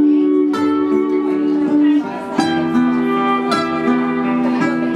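Music on a plucked string instrument, guitar-like: picked notes that ring on over held low notes.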